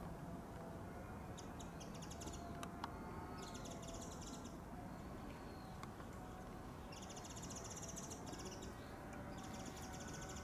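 A small bird's rapid, high trill, repeated four times with each trill lasting about a second, over steady outdoor background noise.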